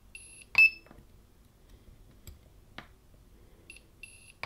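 Portable battery spot welder welding nickel strip onto 18650 lithium cells: short high beeps as the probes touch, then a sharp loud snap of the weld pulse. This happens twice, about half a second in and again at the very end. The welds are not going through the thick nickel strip.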